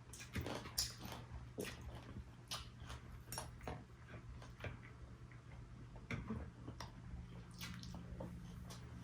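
Close-miked eating sounds: irregular small clicks and wet smacks of chewing and handling food, about one every half second, over a steady low hum.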